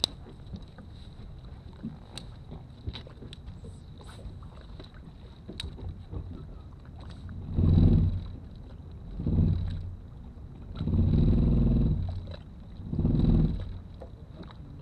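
Sounds on a bass boat on the water: a low hum swells up and dies away four times in the second half, each swell lasting about a second, over a faint steady high whine.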